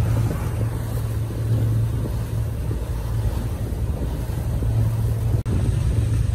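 Motorboat engine running steadily with a low hum, mixed with wind and water noise. The sound cuts out for an instant about five seconds in.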